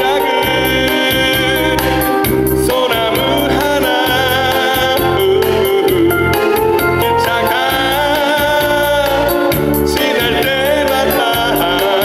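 A male singer singing a Korean pop song live into a microphone over a recorded backing track, in phrases with brief pauses, with a steady pulsing bass beat and sustained keyboard chords underneath.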